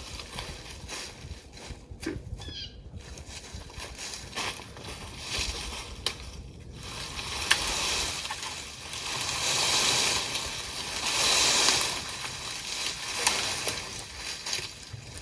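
Leafy branches and brush rustling and crackling, with a few sharp snaps, rising in two louder rushing swells past the middle; the saw's motor is not running.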